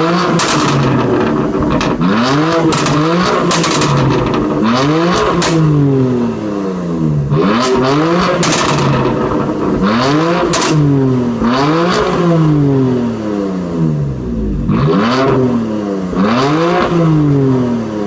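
BMW M4 Competition's 3.0-litre twin-turbo straight-six revved through its M Performance exhaust, about eight times, one rev roughly every two seconds. As the revs fall back each time, the exhaust crackles and pops.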